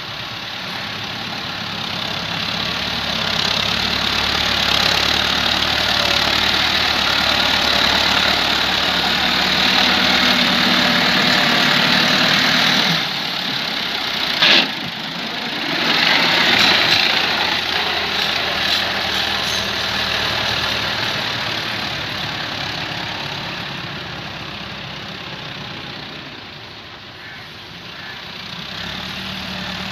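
Farm tractor diesel engine working under load as it pushes soil and climbs a dirt heap. The sound breaks off abruptly about halfway, then a sharp knock comes before the engine picks up again.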